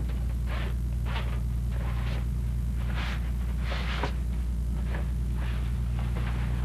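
Steady low drone of the fishing boat's engine heard inside the cabin, with repeated rustling swishes of clothing as a man pulls off his work jumper.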